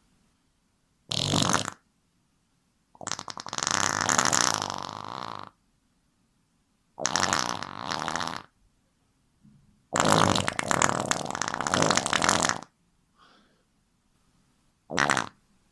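A series of fart sounds: about five separate rasping farts of uneven length, two short ones and two long drawn-out ones of about two and a half seconds, with pauses between.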